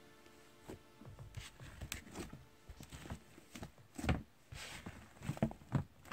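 White school-glue slime being squeezed and kneaded by hand, giving irregular sticky squelches and small crackling pops, with the loudest squishes about four seconds in and near the end.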